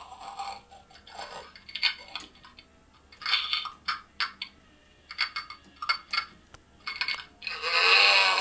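Animated life-sized zombie prop making irregular crunching and clicking sounds as it gnaws on the severed arm. Near the end a low, wavering moan starts.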